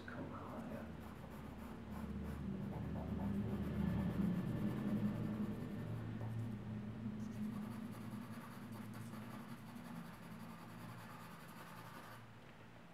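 Charcoal pencil rubbing and scratching on drawing paper in continuous shading strokes, over a low steady hum.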